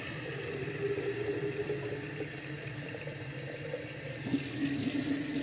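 Kitchen tap running into a glass measuring jug held under it in a stainless steel sink, a steady splashing stream, with a faint hum that drops to a lower pitch about four seconds in.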